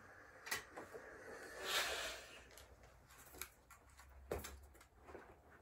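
Steam iron hissing briefly about two seconds in, among light clicks and knocks from the iron and clothes being handled.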